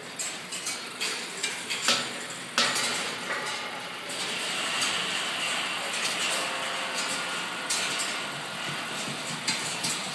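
Balls running through a large rolling-ball sculpture: a steady rattle of balls rolling on wire tracks, broken by many sharp clicks and clacks as they drop and strike metal parts, loudest about two seconds in.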